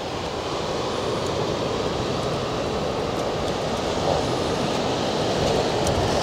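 Surf on a sandy beach: the steady rush of waves from the sea, with wind blowing on the microphone.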